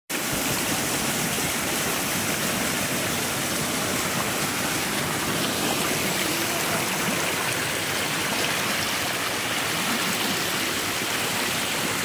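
Steady rush of water from a small waterfall and the fast stream below it.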